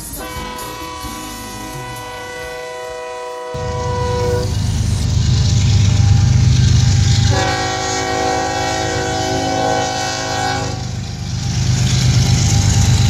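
Diesel freight locomotive horns: a long held chord that fades out about four seconds in, then a second blast of about three seconds. Under and after the second blast comes the deep rumble of diesel engines, growing louder as the locomotives come up to the crossing.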